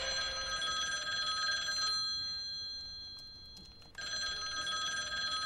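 Landline telephone ringing. One ring stops about two seconds in and dies away, and the next ring starts about four seconds in.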